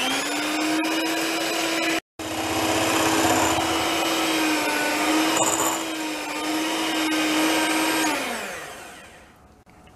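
Electric hand mixer running, its beaters whipping heavy cream in a glass bowl: a steady motor whine with a brief gap about two seconds in, then it drops in pitch and dies away near the end.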